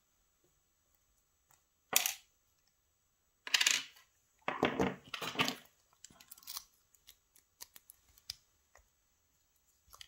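Small metal parts of a lock cylinder clinking and rattling as it is taken apart: one sharp clink about two seconds in, a run of louder clinks and rattles from about three and a half to five and a half seconds, then light scattered ticks.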